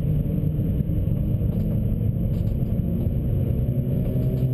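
Stage 2 Suzuki Swift's engine pulling hard, heard from inside the cabin, its pitch rising slowly as the car accelerates, over steady road rumble.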